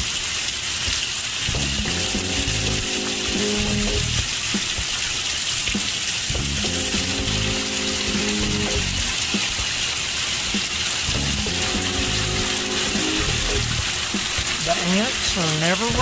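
Rain pouring steadily, a dense even hiss, under background music of sustained chords.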